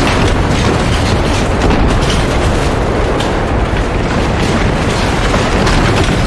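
Storm sound effect: a loud, unbroken roaring rumble of wind and destruction, with scattered crackles.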